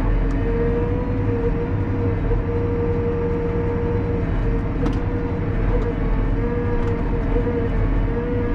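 Valtra 154e tractor's diesel engine and hydraulics running the Kesla 144ND loader crane, heard inside the cab: a steady low drone with a high whine that wavers slightly as the crane is worked. A few faint clicks sound around the middle.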